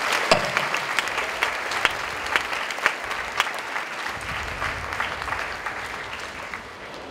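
An audience applauding in a hall: dense clapping that slowly thins and fades, dying away near the end.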